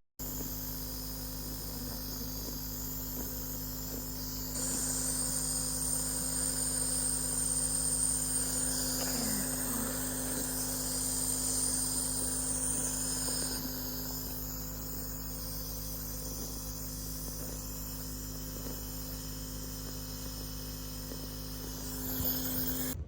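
Small nebulizer compressor running with a steady electric hum and buzz. A thin high whine joins it, a little louder, from about a quarter of the way in to a little past the middle.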